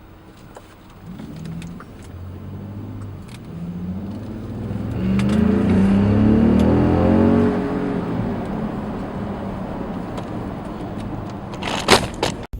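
Second-generation Ford Raptor's twin-turbo EcoBoost V6 accelerating hard in a full-throttle pull. The engine note rises and is loudest about halfway through, then eases. A couple of sharp knocks come near the end.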